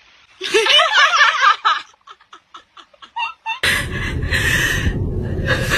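A person laughing, first in a wavering, rising-and-falling run, then in a string of short laugh pulses about four a second. A little over halfway in, a loud, noisy sound with a deep rumble starts and carries on.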